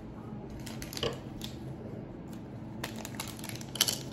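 Scattered light clicks and clatters of small hard objects being handled, over a steady low hum; the sharpest click comes just before the end.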